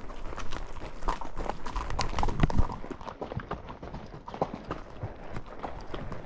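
Horse hooves striking the trail in an irregular series of clip-clops as the horses are ridden.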